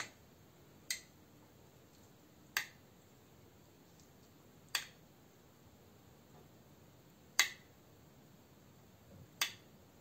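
A metal spoon clinking against the dishes five times, about two seconds apart, while lemon sauce is spooned from a glass bowl over the chicken.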